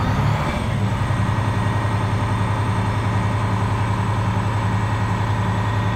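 10.8-litre Cummins six-cylinder diesel of an International WorkStar 7600 dump truck running with its PTO-driven hydraulic pump engaged to raise the steel dump body, heard from inside the cab as a steady low hum. A faint high whine rises in the first second and then holds steady.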